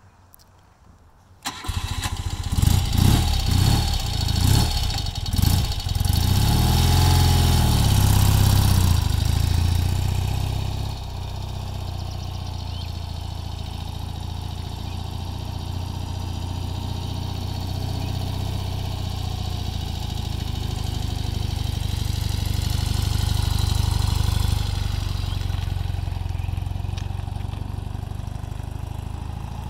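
1976 BMW R60/6 air-cooled flat-twin engine starting about a second and a half in and being revved a few times. It then settles into a steady run at low revs.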